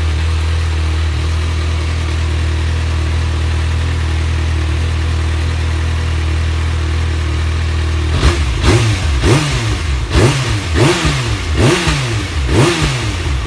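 Kawasaki ZX-6R sport bike's inline-four engine idling steadily just after starting, then blipped about six times in quick succession, each rev rising and falling back to idle, in the last five seconds. The revving is really loud.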